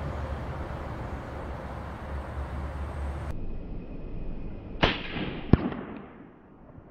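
Two pistol shots from a NORINCO Model 213 9mm, about two-thirds of a second apart, each with a short echo, after a stretch of steady hiss.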